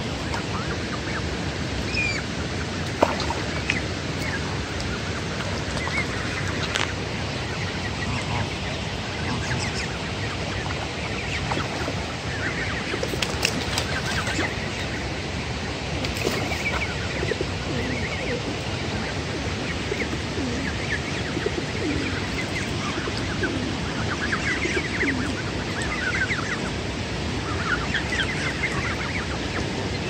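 Steady rush of a waterfall, with Canada goose goslings giving short high peeps now and then, more of them near the end.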